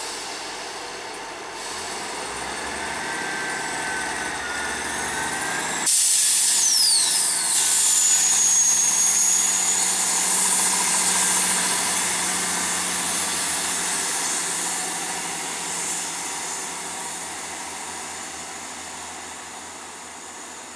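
Class 158 diesel multiple unit pulling away, its underfloor diesel engines working. About six seconds in the sound jumps louder, with high-pitched squeals that fall then hold, typical of wheel flanges squealing on the curve, and it then slowly fades as the train moves off.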